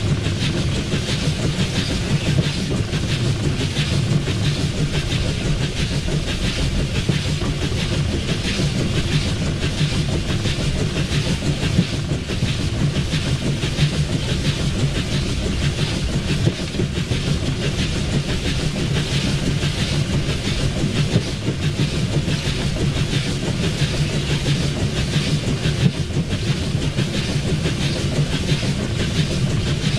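Swedish SJ class E2 steam locomotive no. 1040, built 1910, heard from inside its cab while running on the line: a steady, loud mix of low mechanical rumble, steam hiss and wheel and rail clatter.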